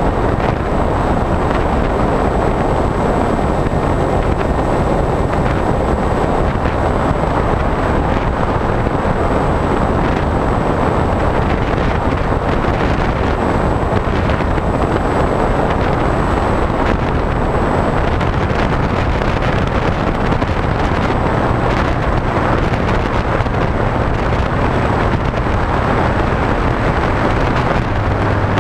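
Steady wind rush buffeting the onboard camera's microphone of a HobbyKing SkyEye FPV plane in flight, mixed with the drone of its electric motor and propeller. A low hum grows stronger in the last few seconds.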